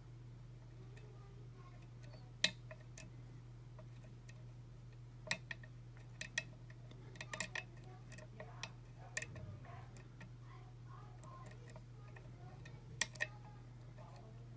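Lock pick and tension tool working a pin-tumbler challenge lock: scattered sharp metallic clicks and taps as pins are lifted and set, the plug held in a deep false set by security pins. A steady low hum runs underneath.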